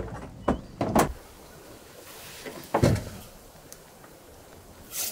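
Knocks and clunks of gear being handled on a pickup truck's tailgate and bed drawer: a few in the first second, a heavier thump about three seconds in, and a short burst of noise near the end.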